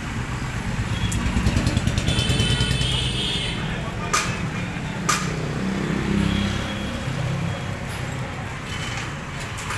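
A motor vehicle engine running as a steady low rumble, with two sharp clicks about a second apart near the middle.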